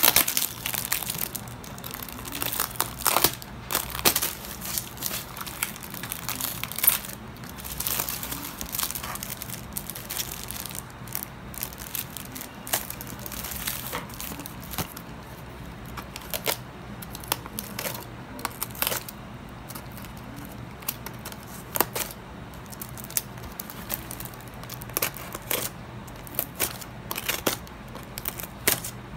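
Plastic wrap and brown paper packaging crinkling and rustling in irregular bursts as hands handle and unwrap a parcel, with frequent sharp crackles.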